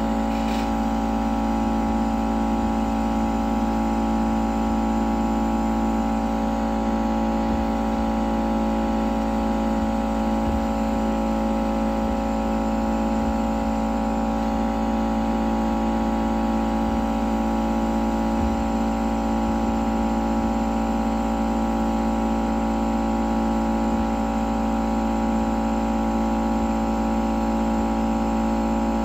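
Hot air rework gun running with a steady hum and whine, unchanging throughout.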